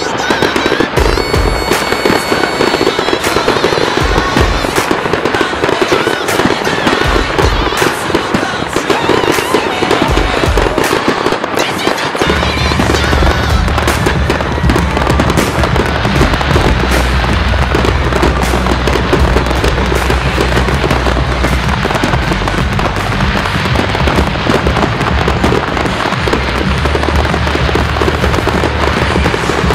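Aerial fireworks display: a dense, continuous run of bangs and crackling from bursting shells and cakes. Music plays underneath, and a deep bass comes in about twelve seconds in.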